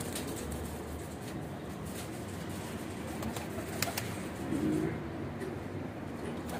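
Several domestic pigeons cooing, a steady low murmur with a louder coo about four and a half seconds in. A couple of sharp clicks come in between.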